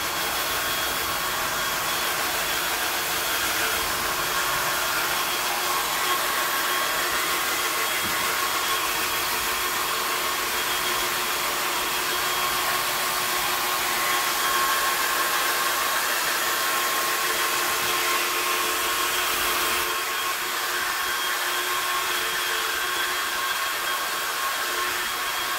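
KIMO 20V cordless drill running steadily with a drill brush attachment scrubbing wet shower tile: a steady motor whine over the hiss of the bristles.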